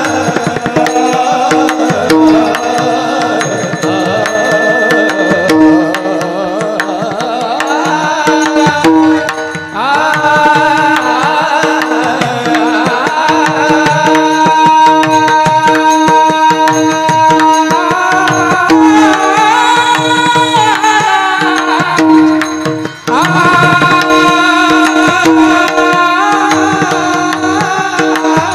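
Marathi Warkari devotional bhajan: a sung melody over a steady held drone, with hand-drum rhythm throughout, briefly thinning twice.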